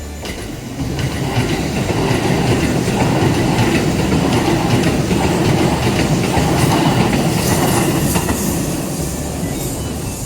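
Shin-Keisei Line electric train passing close by, its wheels clattering over the rail joints. The sound builds about a second in, is loudest in the middle and eases off near the end.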